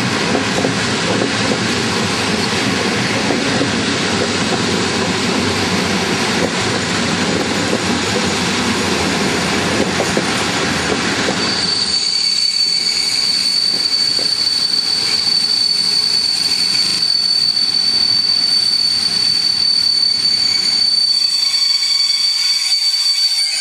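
Passenger coaches rolling past on the rails with a dense wheel clatter and rumble. About halfway through the rumble drops away and the wheels give a steady high-pitched squeal as the train slows into the station.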